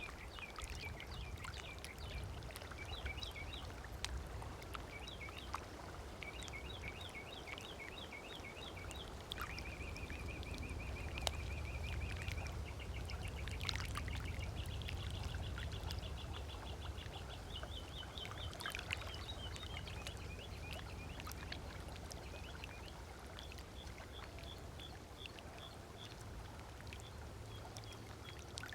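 Lake water lapping and trickling at the shore, with songbirds calling throughout in runs of quick repeated chirps and two long rapid trills. A steady low rumble lies underneath.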